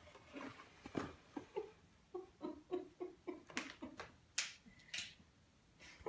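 A cat caught in a bag's handle moving about with the bag: a quick run of soft thumps, about four a second, then a few sharp crinkles of the bag.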